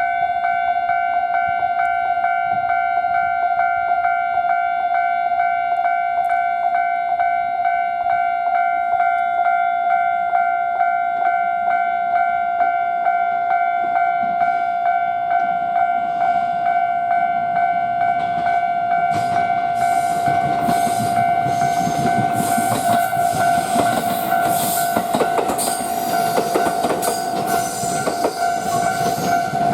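Level-crossing warning bell ringing a steady, evenly repeated electronic ding, the signal that a train is coming. About 19 seconds in, a passing train's wheel-on-rail clatter rises over the bell and is loudest near the end.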